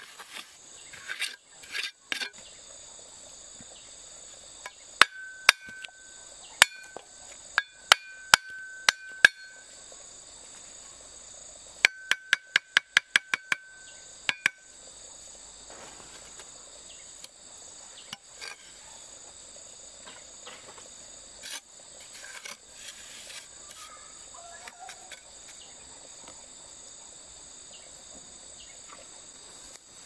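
Steady high-pitched buzzing of insects, with sharp hammer-like taps on something hard that rings briefly after each blow. A handful of spaced strikes come about five seconds in, then a quick run of about four a second near the middle.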